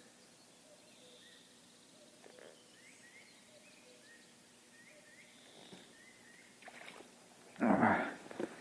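Quiet river-bank background with faint birds chirping, then near the end a short loud splash and slosh of water.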